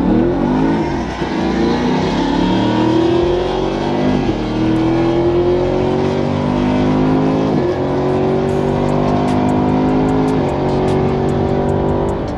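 Car engine at full throttle through a drag-strip pass, heard from inside the car. It climbs in pitch through each gear, with upshifts about four, seven and a half and ten and a half seconds in.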